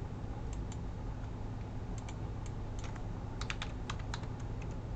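Computer keyboard keystrokes as numbers are typed into data fields: a few scattered clicks, then a quick run of keystrokes about three and a half seconds in, over a low steady hum.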